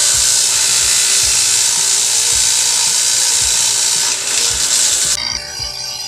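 Homemade leaf shredder driven by a water pump motor, running loud with a harsh, hissing grind as it shreds banana leaves. About five seconds in the grinding drops away and the machine runs on more quietly with a steady whine.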